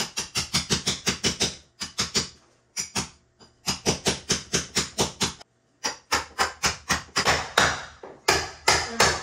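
Hammer driving nails into wooden concrete formwork: quick runs of sharp blows, about six a second, with short pauses between the runs.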